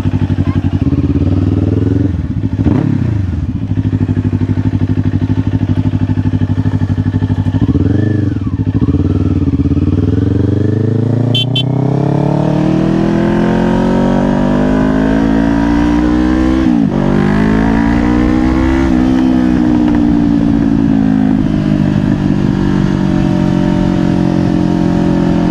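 Kawasaki Ninja 500 parallel-twin engine heard from the rider's helmet as the bike rides off. The revs dip and recover briefly twice, then climb steadily with a quick drop partway through, like a gear change. Near the end they ease off and settle to a steady cruise.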